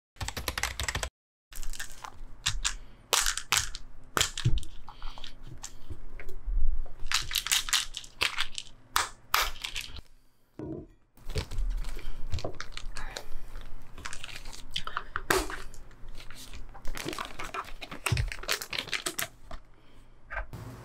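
Plastic packaging crinkling and rustling as it is handled, with irregular knocks of small objects being set down on a table. It breaks off briefly about a second in and again around the middle.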